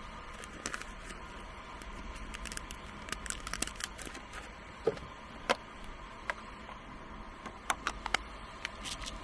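Handling of coffee-making gear: a paper coffee-bean bag crinkling, and beans and the parts of a hand coffee grinder clicking and tapping as its lid and crank are fitted. The clicks are scattered and irregular, with the sharpest about halfway through and a cluster near the end.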